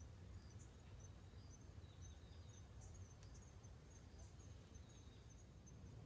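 Quiet forest ambience: a steady low rumble under faint, short, high chirps repeating a few times a second.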